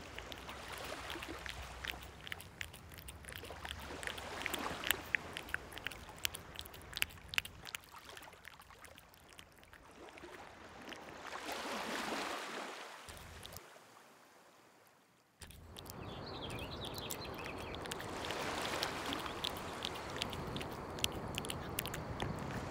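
A cat lapping water from a ceramic bowl: quick, wet little clicks, over the soft wash of small waves on a pebble beach. The wave noise swells up twice, and the sound drops to near quiet for a couple of seconds in the middle.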